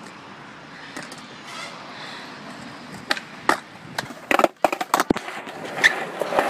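Skateboard on a concrete skatepark surface: a quick run of sharp clacks and knocks a little past the middle, then the wheels rolling, louder near the end.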